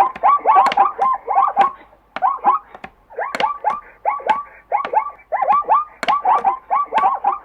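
Zebra calling: quick runs of short chirping barks, each rising and falling in pitch, in clusters of two to four with brief pauses, mixed with sharp clicks.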